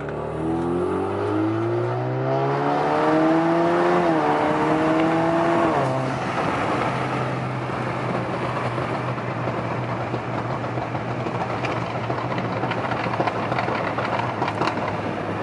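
Alfa Romeo's turbocharged 2.0-litre engine accelerating hard, heard from inside the cabin: the engine note climbs for about four seconds, dips briefly at a gear change and climbs again, then the throttle lifts about six seconds in and it settles into a steady cruising hum with road noise. The engine is running fine.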